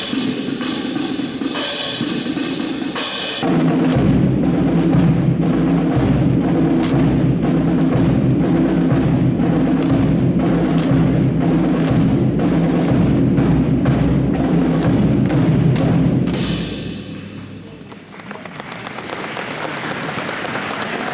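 Recorded music with a heavy drum beat, echoing in a large hangar, with regular sharp clacks over it. About three-quarters of the way in the music fades out and applause rises.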